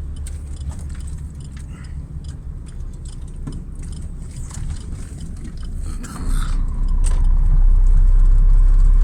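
Truck's engine running, heard from inside the cab, with the turn-signal relay ticking. About six seconds in, the low engine rumble swells sharply as the truck pulls away under load.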